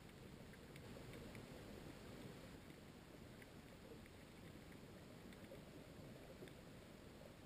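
Faint, muffled underwater ambience: a low, even rumble of water movement with scattered tiny clicks throughout.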